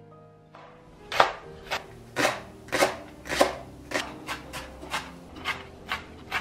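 Kitchen knife chopping green onion on a bamboo cutting board: a run of sharp knocks of blade on wood that starts about a second in, roughly two a second, getting a little quicker toward the end.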